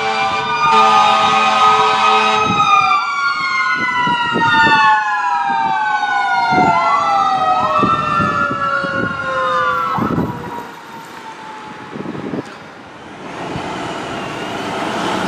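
Rosenbauer aerial ladder fire truck's siren wailing, with a steady air-horn blast in the first couple of seconds. The siren's pitch slides down as the truck passes and fades after about ten seconds, leaving road noise.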